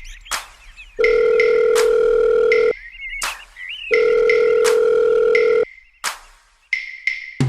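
Telephone ringback tone of an outgoing call: two long steady tones, each a little under two seconds, with about a second between them. Short high chirps and clicks repeat in the background.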